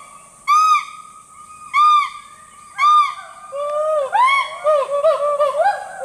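Hoolock gibbons calling: loud, arched hooting notes, the first three about a second apart. From a little past halfway they come faster and overlap, with lower and higher notes interleaved.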